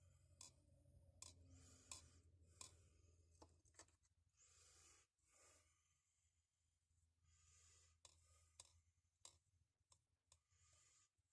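Near silence: faint room tone with a low hum, soft hissing swells and scattered faint clicks.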